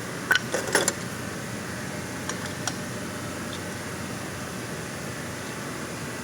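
A quick cluster of sharp metallic clicks and clinks in the first second, then a few lighter ticks about two seconds later, over a steady whooshing hum like a fan running.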